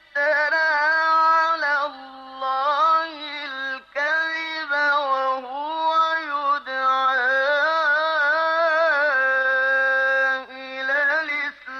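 Quran recitation in a single unaccompanied male voice, chanted in melodic tajweed style. It moves in long held notes with ornamented turns, in phrases broken by brief pauses for breath about 2 s, 4 s and 10.5 s in.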